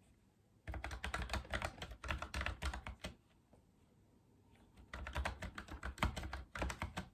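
Typing on a Logitech MX Mechanical Mini for Mac mechanical keyboard: two quick runs of key clicks with a short pause between them.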